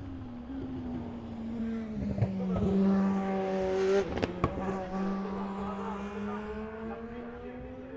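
A race car's engine passing through the chicane. The engine note builds to its loudest about four seconds in, with two sharp cracks just after the peak, then fades as the car pulls away, its pitch climbing slowly.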